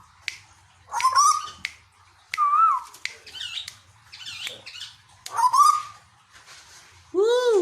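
Asian koel (tuwu) calling in a string of short, loud whistled calls about a second apart, each bending up and down in pitch, with a harsher call near the end.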